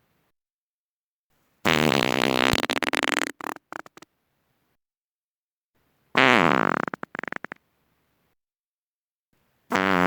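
Human farts: three separate blasts of about a second and a half each, each breaking up into short sputters at the end, with silence between them. The third starts near the end and is cut off.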